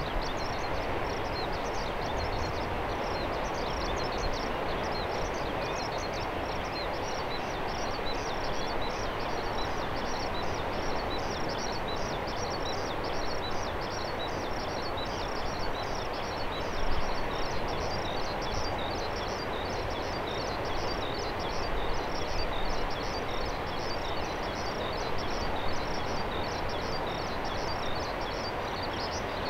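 Distant Airbus A320 jet engines running steadily as the airliner taxis, a constant rushing rumble with slight swells. Dense high-pitched chirping runs over it throughout.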